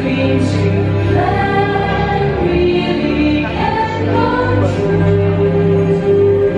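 Fireworks show soundtrack music with a choir singing long held notes.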